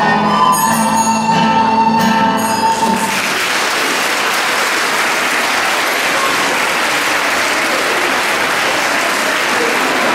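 A recorder ensemble holds its last notes, which stop about three seconds in. The audience then applauds steadily.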